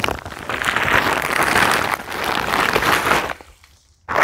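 Leaves pouring out of an upturned plastic sack into a wire-mesh compost bin: a dense, crackling rustle. It breaks off for most of a second a little after three seconds in, then starts again just before the end.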